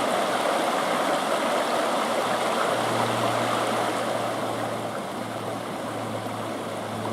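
Mountain stream flowing: a steady wash of running water, easing slightly in the second half, with a faint steady low hum underneath.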